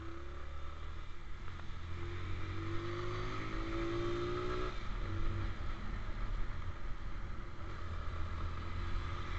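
Motorcycle engine running while riding, with steady wind and road rumble; about two seconds in the engine note rises as it accelerates, then drops away suddenly a couple of seconds later.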